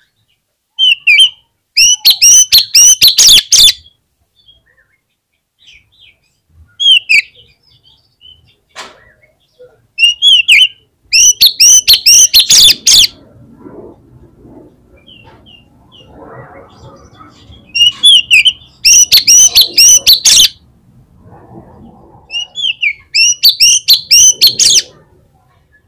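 Oriental magpie-robin (kacer) in full, loud song: bursts of rapid, repeated high chattering notes, about five phrases with short pauses between them.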